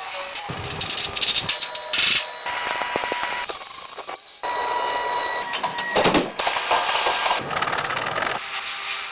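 Mechanical workshop noise: whirring and clicking tool or machine sounds that change every second or so.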